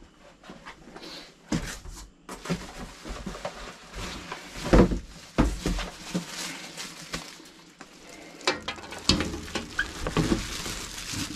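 Cardboard box, packing and a plastic sleeve rustling and crinkling as a boxed air fryer is lifted out and set down, with irregular knocks of the unit against the packaging and hob. The loudest knock comes about five seconds in.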